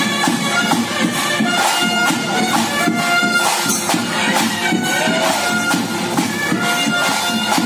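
Bhuta kola ritual music: a double-reed pipe of the nadaswaram kind plays a melody of held notes over continuous drumming.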